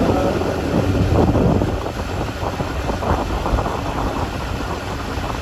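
Honda Super Cub 90 motorcycle riding along, its small four-stroke single-cylinder engine running steadily under heavy wind noise on the microphone.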